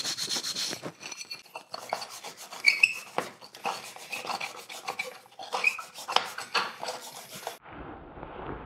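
Small metal parts of a Bosch Hall-sensor ignition unit scrubbed by hand against a red abrasive fleece pad: quick, irregular scratchy rubbing strokes, cleaning off grime and rust. The scrubbing stops near the end.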